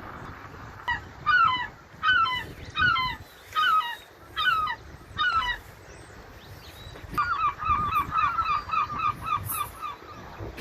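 Seagulls calling: a series of about seven loud, downward-slurred calls, then, about seven seconds in, a fast run of short repeated notes, several a second.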